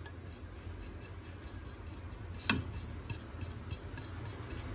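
Ground spices brushed by hand off a plate into a glass dish: faint rubbing and scraping, with one sharp tap about two and a half seconds in.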